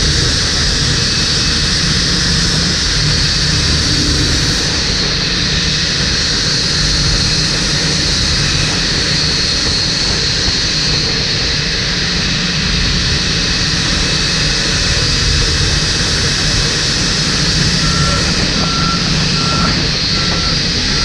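Steady, loud whine and rush of the Boeing 787-9's Rolls-Royce Trent 1000 jet engines running, with the pushback tug's engine underneath. A run of short electronic beeps, about three every two seconds, starts near the end.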